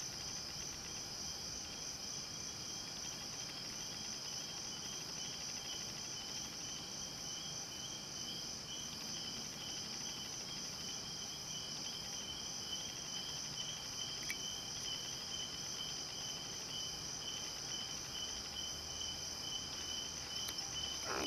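Steady chorus of crickets and other night insects: a continuous high-pitched trill at two pitches.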